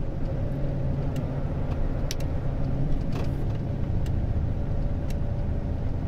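Volvo truck's engine running steadily with road noise, heard from inside the cab, with a few scattered light clicks.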